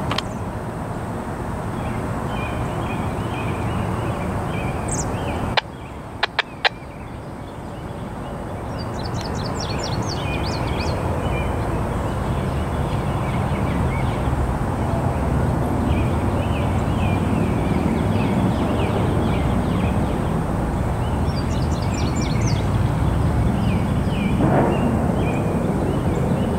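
Songbirds chirping and trilling in short repeated phrases over a steady low rushing background noise. A few sharp clicks come about six seconds in, and the background briefly drops after them.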